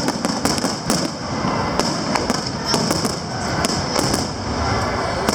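Aerial fireworks shells bursting in quick succession: many sharp bangs and cracks a second over a continuous crackling din.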